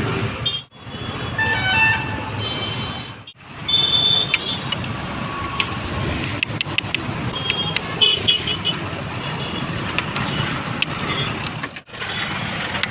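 Busy roadside street noise: vehicles passing with car horns tooting now and then. The sound drops out briefly three times.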